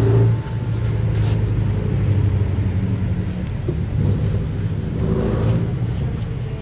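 A steady low mechanical rumble, like a running engine or motor, holding a constant hum throughout.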